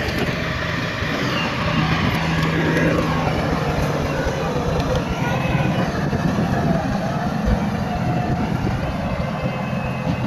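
Heavy diesel construction machinery, bulldozer or dump truck, running steadily under load, with a dense mechanical clatter and some wavering higher squeals above the low engine drone.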